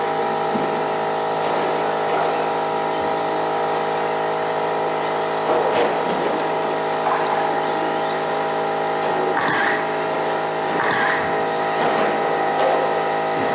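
A pack of radio-controlled stadium trucks racing on an indoor track: a steady layered whine of several motors rising and falling as they speed up and slow for corners. Two short hissy bursts come a little over a second apart, about two-thirds of the way through.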